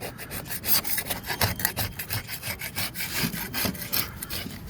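Rapid, irregular scraping and clicking on wood, a busy run of short rubbing strokes and light knocks.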